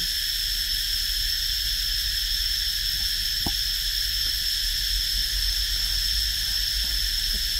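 A steady, shrill insect chorus droning at one unchanging high pitch, with a single short tap about three and a half seconds in.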